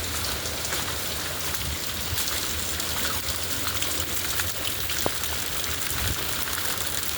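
Steady hurricane rain falling, a dense hiss of drops with many small ticks, over a low rumble.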